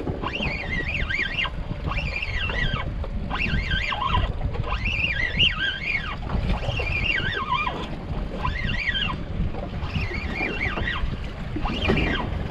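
Wind buffeting the microphone over the low rumble of the boat on open water. Over it, a high wavering whine comes in short runs about every second and a half: a fishing reel being cranked in spurts as a hooked fish is brought up from the bottom.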